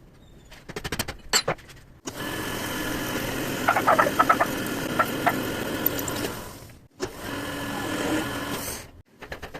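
Metal lathe running steadily, with a few sharp metallic clicks about halfway through; it stops abruptly, runs again for about two seconds, then stops. Light handling clicks come before and after.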